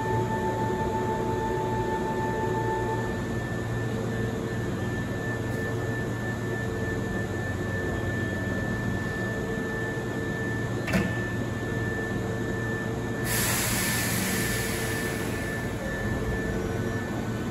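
Hankyu 7300-series electric train standing at the platform, its onboard equipment giving a steady hum and whir. A short sharp click comes about eleven seconds in, then a sudden hiss of air about thirteen seconds in that fades over a few seconds, as the pneumatic doors close before departure.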